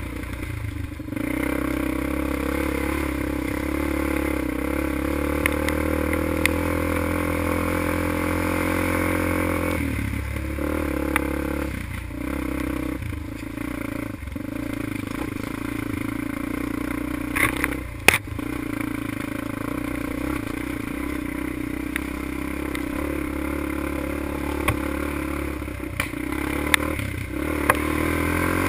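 ATV engine running hard as it is ridden along a rough trail, the pitch dropping and picking up again several times as the throttle is eased and opened or gears change. Sharp knocks and rattles from the machine going over bumps, the clearest about two-thirds of the way through.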